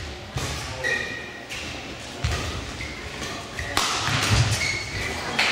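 Badminton rally: several sharp racket strikes on the shuttlecock, about a second or so apart and echoing in the hall, with short shoe squeaks on the court floor between them. The hits get louder from about four seconds in.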